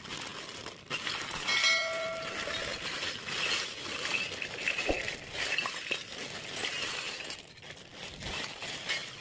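Miniature stainless-steel and plastic toy kitchen pieces clinking and clattering as they spill from a crinkling plastic bag onto a concrete floor, with one small steel piece ringing briefly about a second and a half in.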